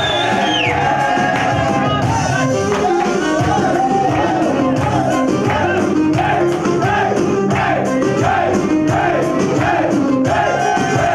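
Loud dance music with a steady beat under a wavering melody line.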